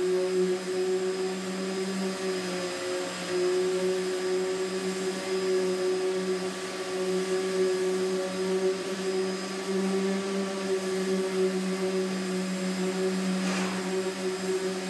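Electric sander running steadily against the fiberglass hull of a Sunfish sailboat, sanding the gel coat, with a motor hum under a rough sanding noise that swells and fades as the pad moves. A brief sharper scrape comes near the end.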